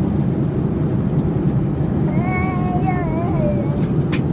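Steady road and engine rumble inside a moving car's cabin. About halfway through, a high child's voice calls out for a second and a half, and a single sharp click comes near the end.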